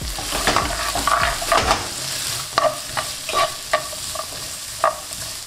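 Sliced onions and green peppers sizzling in oil in a wok, with a spatula scraping and tapping against the pan in a series of sharp clicks as they are stirred and lightly sautéed.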